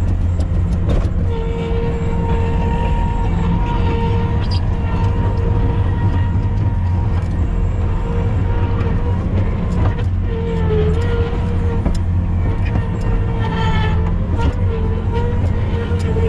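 Heavy diesel earthmoving machine running steadily, with a whine that holds one pitch and wavers slightly, and scattered clanks and knocks.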